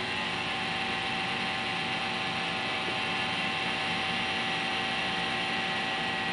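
Lissajous laser curve maker running, giving off a steady mechanical whine of several fixed tones over a hum.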